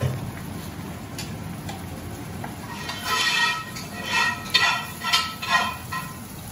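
A metal spatula stirring and scraping beef karahi around a metal karahi, with the yogurt gravy sizzling as the meat is fried down (bhuna) until the oil separates. From about three seconds in, the scraping strokes come roughly twice a second.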